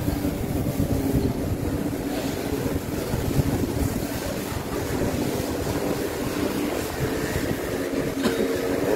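Wind rumbling on the microphone over a steady low hum.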